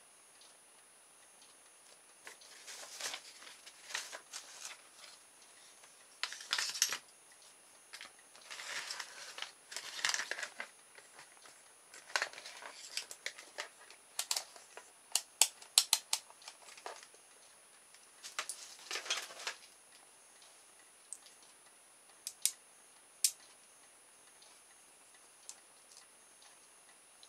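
Small plastic motor-kit parts being handled and worked with a small screwdriver: irregular bouts of scraping and rubbing, a run of sharp clicks about halfway through, and a few lone clicks later on.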